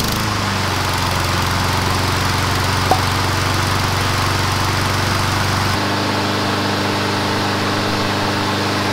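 Brand-new Honda HRN216 lawn mower's GCV170 single-cylinder engine running steadily, just after starting on its first pull, on its first break-in run. About six seconds in, the tone of the engine shifts abruptly.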